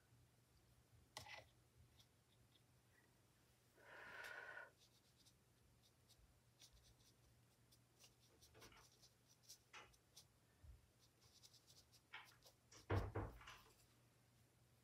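Faint sounds of an ink brush working on paper: a soft swish of a stroke about four seconds in, scattered light taps and rustles, and a duller knock near the end.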